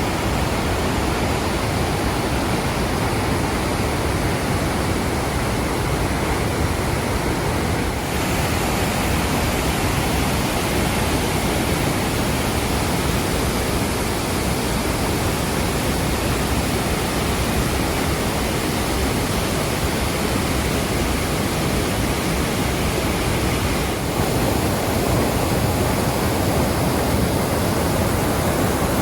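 Rhine Falls waterfall: a large mass of water pouring and crashing in a steady, dense rush. The sound grows brighter and hissier about eight seconds in and shifts again a few seconds before the end.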